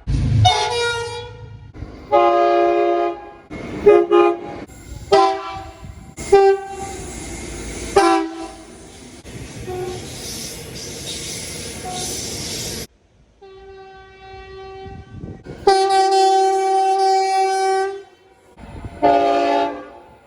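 Multi-chime locomotive air horns sounding a run of short and long blasts, spliced from several recordings with abrupt cuts between them. A few seconds of train running noise, with no horn, fall near the middle, and a long, loud horn blast comes near the end.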